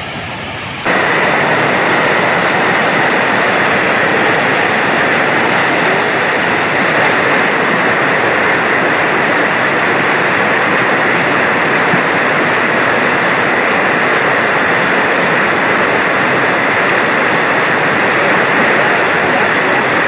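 Muddy flash-flood torrent rushing past at close range: a loud, steady rush of water that starts abruptly about a second in.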